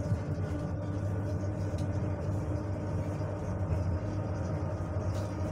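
Steady running noise inside the car of an ER9M electric multiple unit under way: a low rumble with a steady hum.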